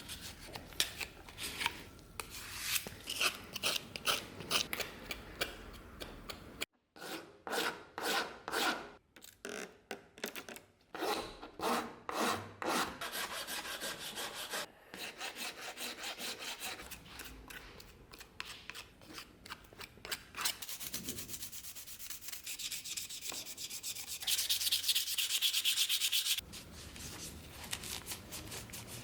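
Repeated rubbing strokes of hand abrasive work, such as sanding, in several short segments that cut off abruptly from one to the next. The strokes are brighter and louder for a couple of seconds near the end.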